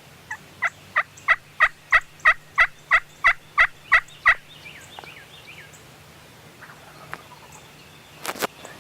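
A run of about thirteen loud turkey yelps, evenly spaced at about three a second, stopping about four seconds in. Faint small-bird chirps sound in the background, and there is a brief sharp knock or rustle near the end.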